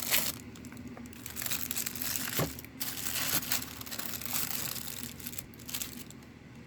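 Wax paper crinkling and rustling as it is unwrapped from a pocket knife, in irregular crackles that thin out toward the end, with one sharp tap about two and a half seconds in.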